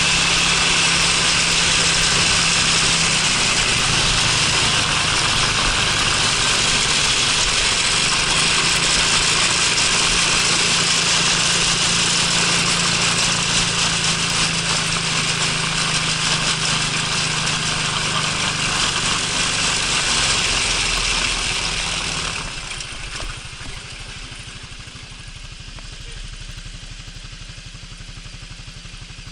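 Honda Freeway 250 scooter riding with its single-cylinder engine under the rush of wind noise. About 22 seconds in, the wind dies away as it slows to a stop, and the engine idles with an even low beat.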